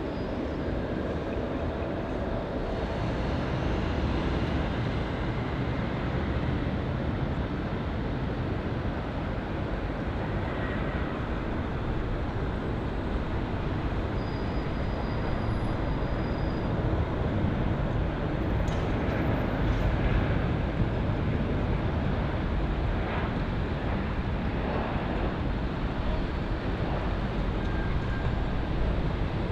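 Airbus A320-200 jet airliner landing and rolling out along the runway: a steady, loud jet-engine rumble that swells a little twice, about four seconds in and again past the middle.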